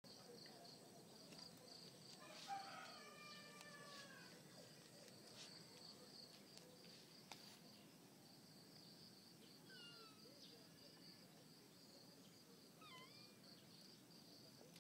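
Faint cat meows: a drawn-out meow about two and a half seconds in and short, quick meows around ten and thirteen seconds, over a steady high-pitched pulsing trill in the background.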